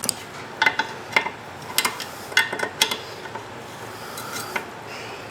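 Hand tools clinking against metal: a string of sharp, ringing metallic clicks and taps, irregularly spaced, as a wrench is worked on the bolts of a lawn tractor's gas tank bracket.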